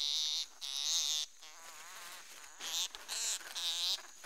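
A bat caught in a mist net calling while it is handled: about five harsh squeals, each under half a second, with short gaps between them.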